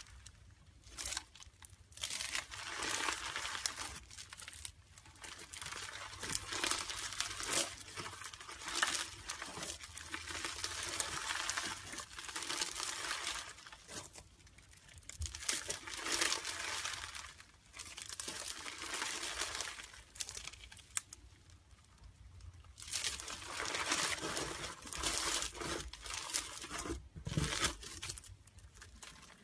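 Fluffy white slime being squeezed, stretched and pulled apart by hand, crackling as it tears. The noise comes in irregular bursts a second or a few seconds long, with brief pauses between.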